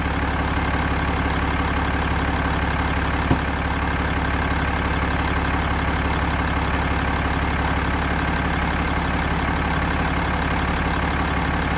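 Ram 2500 pickup's engine idling steadily, with one short click about three seconds in.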